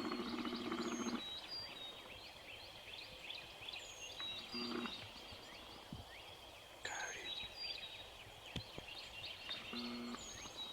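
Dawn bird chorus: many small birds chirping and trilling, with a high, downward-sliding whistle repeated every few seconds. A low, steady tone of several notes sounds for about the first second and briefly twice more, near the middle and near the end.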